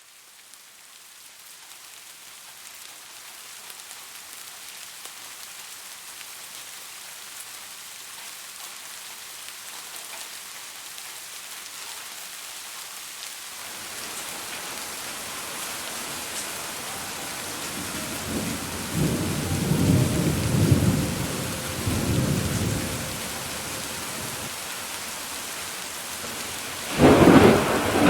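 Steady rain hiss that fades in over the first few seconds, with thunder rumbling from about halfway through and a loud thunderclap near the end.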